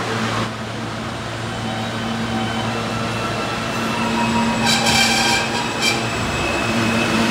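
New York City Subway train on the M line arriving into an underground station, with a steady running hum and rumble that grows louder as it comes in. About five seconds in there is a brief high squeal lasting about a second.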